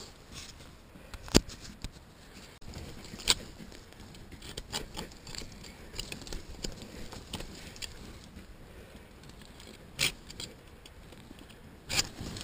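Hand saw scraping on a locked whitetail buck's antler in irregular strokes, cutting it so the two sets of antlers can come apart. A few sharp knocks stand out, the loudest about a second and a half in.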